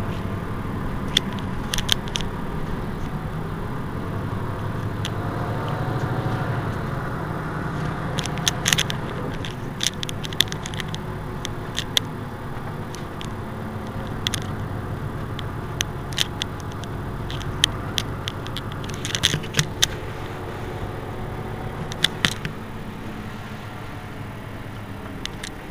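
Mercedes-Benz Citaro C2 city bus engine idling with a steady low hum while the bus stands still, with scattered sharp clicks on top at irregular intervals.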